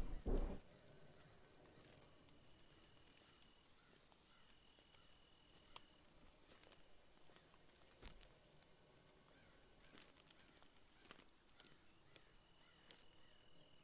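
Faint scratching and light ticks of a pen drawing on paper, after a loud thump right at the start.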